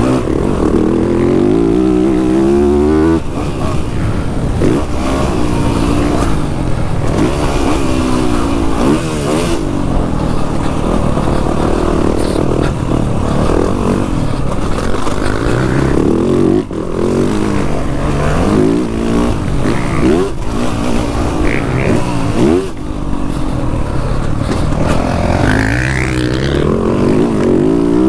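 Motocross dirt bike engine revving hard and dropping back over and over as the rider works the throttle and gears through the turns, heard from on the bike with wind rushing over the microphone.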